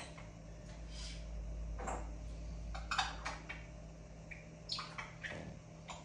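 Pet birds chattering in short bursts of chirps and squawks, around two, three and five seconds in, over a low steady rumble.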